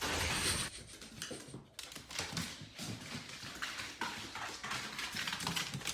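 A dog's sounds mixed with rustling and a run of short clicks and knocks.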